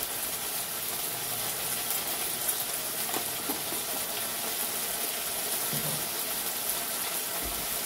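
Oil and spice paste sizzling steadily in an aluminium wok over a gas flame.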